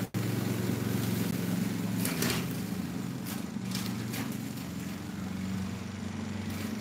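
Gas walk-behind lawn mower engine running steadily under load while mowing grass, growing a little quieter as the mower moves away.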